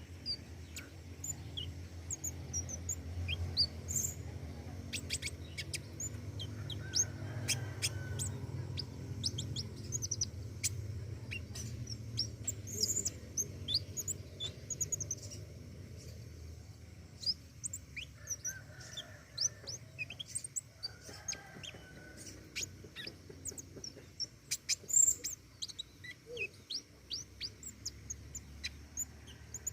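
A pentis raja songbird calling in quick, high, sharp chirps, some bunched into fast runs, singing busily throughout. A low steady hum runs underneath and fades out about halfway through.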